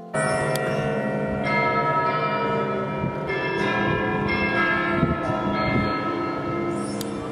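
Church tower bells ringing, struck in turn about every second or so, each ringing tone lingering and overlapping the next.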